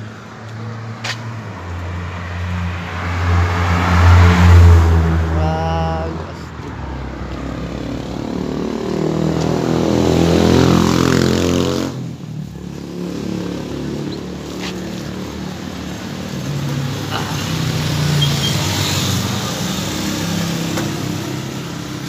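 Small motorcycle engines of tricycles running and revving up twice, the pitch climbing each time, loudest about four seconds in. The sound breaks off abruptly about twelve seconds in, then an engine runs steadily.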